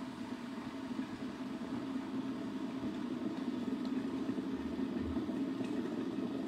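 Kettle heating water close by, a steady rushing hum that grows slightly louder as it works toward the boil.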